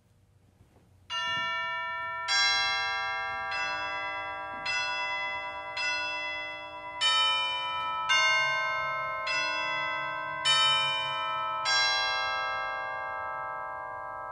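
Church bells ringing a sequence of different notes, one strike about every 1.2 seconds, each bell ringing on under the next; the strikes begin about a second in.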